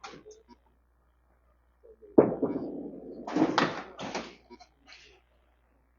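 Candlepin bowling lane sounds: a sudden heavy thud about two seconds in, followed by a second of clattering as pins are knocked down.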